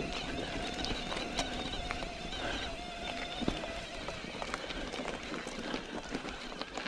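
Mountain bike riding over a rough trail: tyres crunching, with a busy run of irregular clicks and rattles. A steady whine sits under it and stops about four seconds in.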